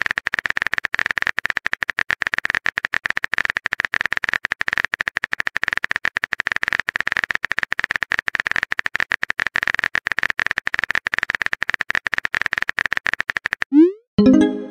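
Chat app's keyboard typing sound effect: a rapid, even stream of electronic key clicks. Near the end it gives way to a short rising swoosh and a brief chime, the app's message-sent sound.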